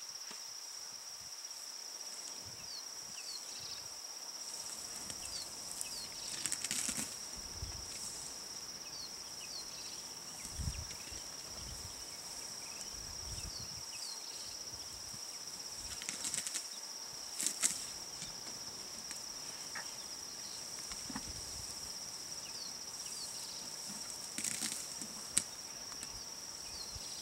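Insects buzzing in a steady high-pitched drone, with faint short chirps scattered over it. A few brief crackling rustles come in, the loudest a third of the way in, just past halfway, and near the end.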